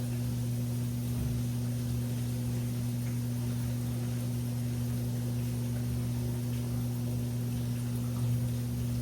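Washing machine running: a steady low hum over a faint even hiss, with a slight swell about eight seconds in.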